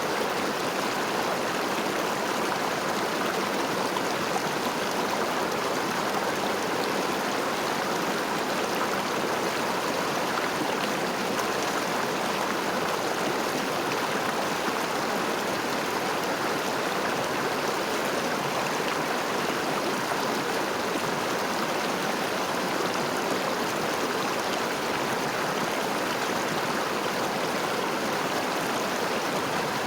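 River water running over stones: a steady, even rush with no breaks.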